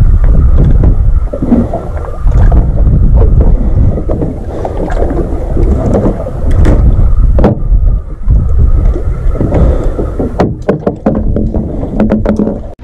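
Wind buffeting the camera microphone aboard a small drifting boat at sea, a heavy, uneven rumble, with a cluster of sharp clicks near the end.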